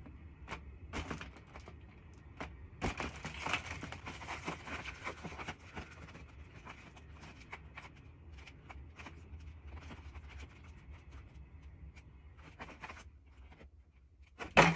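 Quiet room with a low steady hum and scattered faint clicks, creaks and rustles, busiest from about three to six seconds in.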